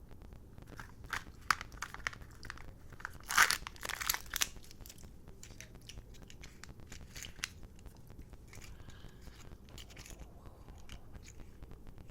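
Kinder egg packaging being handled close up: scattered crisp crackles and clicks of wrapper and plastic, with the loudest cluster about three to four and a half seconds in.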